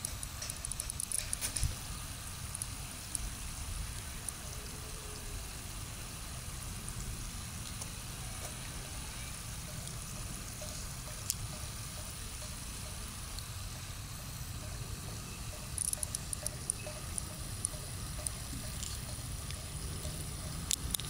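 Pond-side outdoor ambience: a steady low rumble with a faint trickle of water from a small weir. Short bursts of rapid high ticking come about a second in, about three-quarters of the way through and again at the end.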